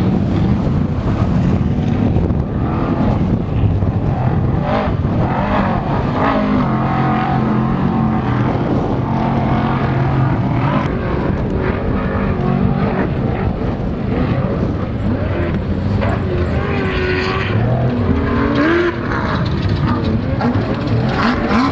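Off-road race vehicles' engines running loud, their pitch rising and falling as they rev.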